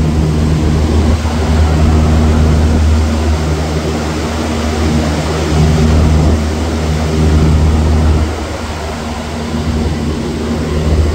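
2008 Engineered Air make-up air unit running at close range: a steady low machine drone that eases slightly about eight seconds in.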